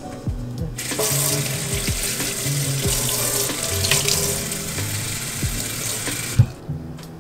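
Kitchen tap running into a stainless-steel sink. The flow starts about a second in and stops near the end, with background music underneath.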